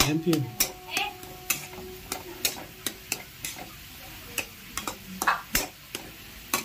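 A metal spatula scrapes and taps against a kadai in irregular strokes, stirring and mashing a soft spiced potato filling, with a light frying sizzle underneath.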